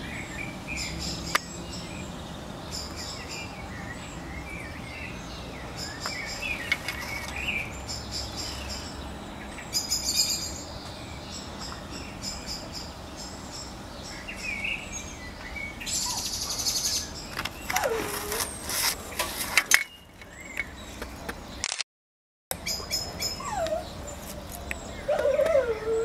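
Scattered short, high bird chirps and cheeps over steady low background noise, with a spell of rustling and clicks a little past halfway.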